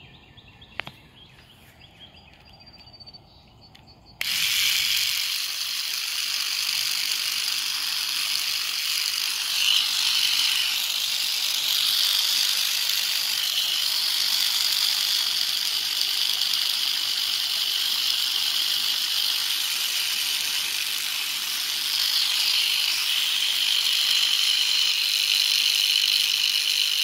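Water spraying from a handheld garden sprayer nozzle onto tomato plants: a steady, loud hiss that starts abruptly about four seconds in.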